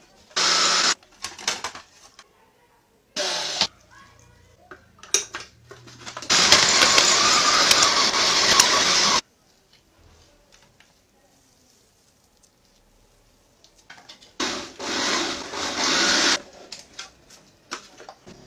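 Electric kitchen robot's chopper running in several bursts, grinding herbs: two short pulses, then a steady run of about three seconds and another of about two seconds near the end. Knocks from the plastic bowl being handled come between the runs.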